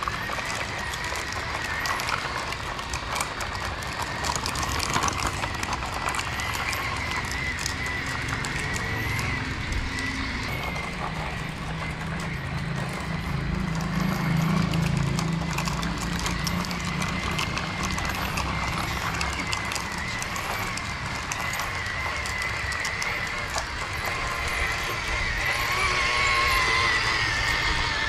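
Electric remote-control truck's motor and gearbox whining, the pitch wavering with the throttle, while towed plastic toy trucks clatter over concrete.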